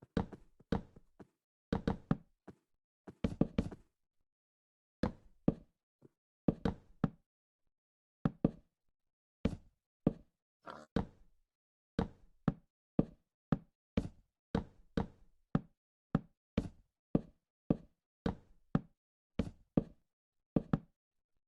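Wood being knocked: a long series of sharp, hollow-sounding knocks, sometimes in quick clusters of two or three, about one or two a second with short pauses.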